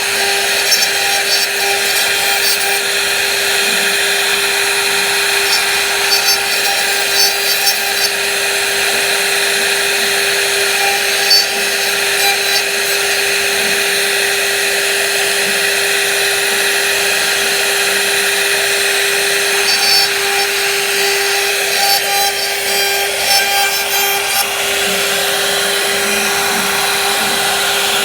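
A power tool cutting wood: its motor runs with a steady whine under a continuous rough cutting noise, with bursts of small crackling ticks.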